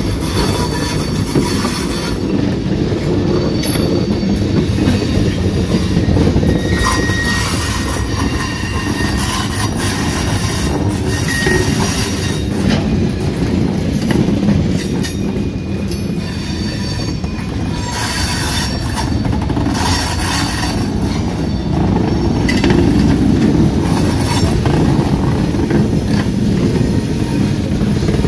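Loaded lumber flatcars rolling on curved track, steel wheels rumbling steadily with high flange squeals that come and go as the wheels grind through the curve.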